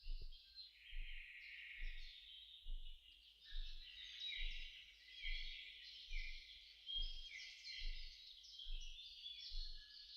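Many small birds chirping and twittering without pause, with a faint soft knock repeating a little more than once a second underneath.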